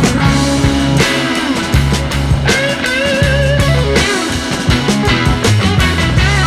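Background rock music with electric guitar, bass and drums keeping a steady beat.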